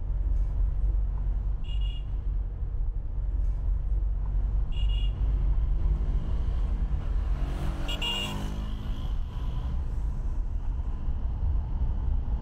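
Steady low rumble of a car driving slowly, heard from inside the cabin, with short horn beeps about 2, 5 and 8 seconds in. Another vehicle's engine swells up and fades past around 8 seconds in.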